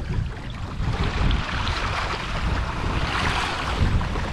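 Water rushing and splashing along the hull and outrigger float of a sailing trimaran under way, with wind buffeting the microphone. The water hiss swells up around the middle and eases near the end.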